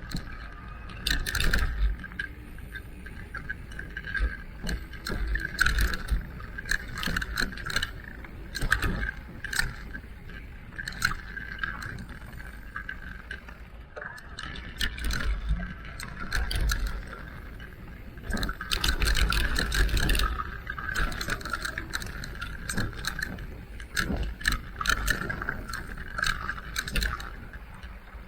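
Electric mountain bike ridden over a rough trail: a steady whine from the drive, a low rumble, and frequent sharp knocks and rattles over bumps.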